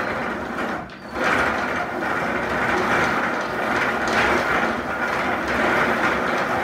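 Wooden rope-making machine being hand-cranked, its gears turning with a continuous grinding rattle as the twine strands are twisted into rope; it breaks off briefly about a second in, then carries on steadily.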